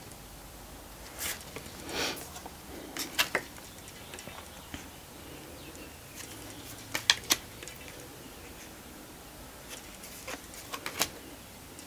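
Tarot cards being moved through a hand-held deck: a few short paper swishes and flicks at uneven intervals as cards are slid off the front and tucked behind.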